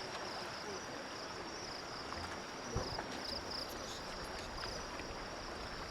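Insects chirping in a steady, high, pulsing trill over a low background hum, with one faint knock about halfway through.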